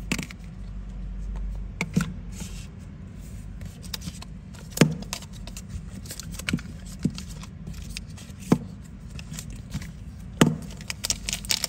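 Zippo lighter's hinged metal lid flicked open and snapped shut, sharp metallic clicks every second or two with a quick run of clicks near the end.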